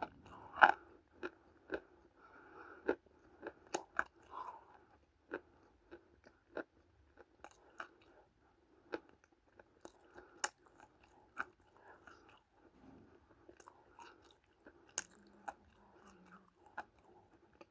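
A person biting and chewing dry lumps of multani mitti (fuller's earth clay): sharp crunches at irregular intervals, about one every second or two, with softer chewing between.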